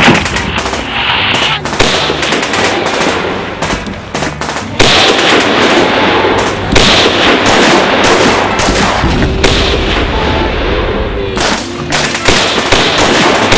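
Battle gunfire: rifle shots and rapid automatic fire overlapping in a dense, continuous barrage that gets louder about five seconds in.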